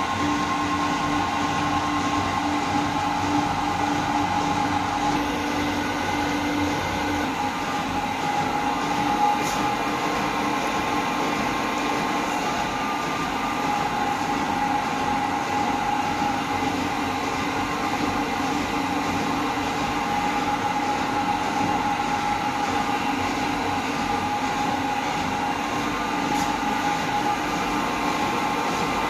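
CNC milling machine cutting with an end mill: a steady machining noise with several held tones, a low tone fading out about seven seconds in and one sharp tick a little later.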